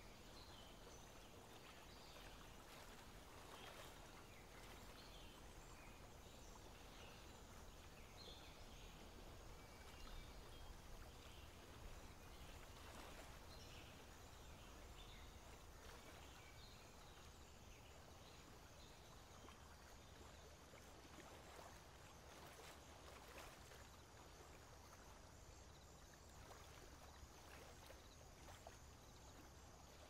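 Near silence: faint outdoor background hiss with a low rumble, and a few faint, short high-pitched sounds in the first half.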